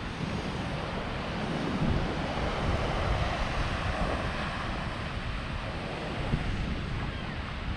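Sea waves washing and breaking, with gusty wind rumbling on the microphone.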